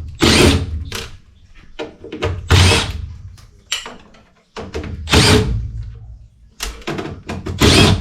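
Handheld power driver running in four short bursts, with sharp clicks and knocks of metal between them.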